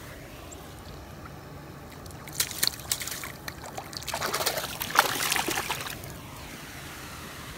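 Water splashing and sloshing in the shallow edge of a canal: a few sharp splashes about two seconds in, then a louder run of sloshing from about four to six seconds in.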